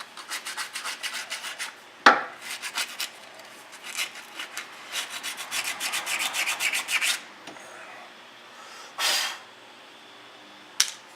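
Sanding disc worked by hand against the corroded wheel hub mount, in rapid back-and-forth scrubbing strokes of about four or five a second, in bursts with pauses. There is a sharp knock about two seconds in, a short hiss near the nine-second mark, and a click near the end.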